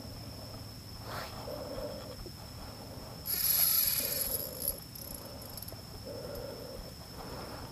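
Unidentified animal calls: short, low calls of about half a second, repeating every second or two, over a steady high whine, with a loud hissing rush from about three seconds in lasting a second and a half.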